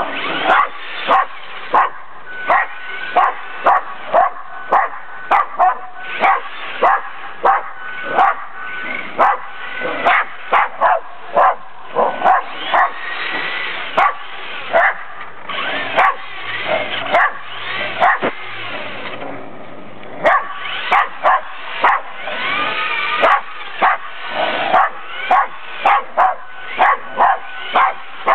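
Jack Russell terrier barking excitedly over and over, about two barks a second, with a pause of a couple of seconds a little past halfway.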